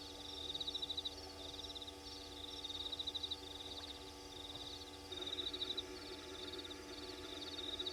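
Night chorus of small calling animals: rapid high-pitched pulsed trills repeating in bouts of about a second, over a steady layer of lower tones.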